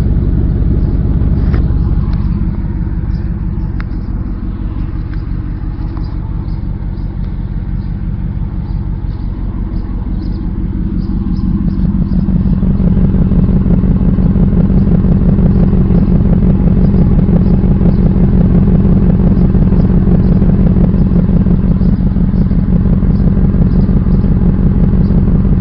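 Ford Lightning pickup's V8 running through an aftermarket exhaust with two Magnapack mufflers, an X-pipe and 18-inch tips. The exhaust note drops quieter for several seconds, then grows louder about halfway through and holds steady.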